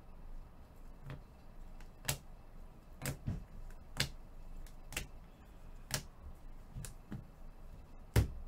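Hard plastic trading-card holders clicking and tapping as they are handled and set down, about one click a second, with a louder knock near the end.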